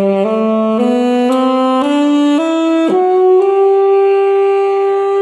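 Alto saxophone playing an ascending sargam scale, Sa Re Ga Ma Pa Dha Ni Sa, with Sa on G. Each note rises one step roughly every half second, and the top Sa, reached a little past the middle, is held steadily for about three seconds.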